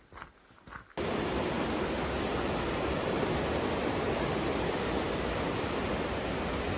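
Footsteps on a trail, then after about a second an abrupt switch to the steady rush of a mountain river's flowing water.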